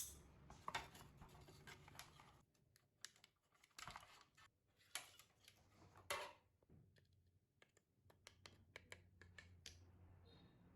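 Faint, irregular clicks and taps of small hard parts being handled, with louder taps about 1, 4, 5 and 6 seconds in.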